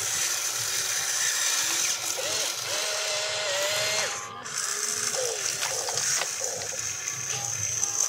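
Electric motors and gearboxes of an RC excavator whirring and ratcheting as the boom, bucket and turntable move, with a steady high whine that drops out briefly a little after four seconds in.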